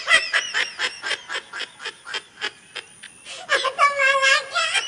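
High-pitched voice: a quick run of short cries, about four or five a second, then a longer wavering cry starting about three and a half seconds in.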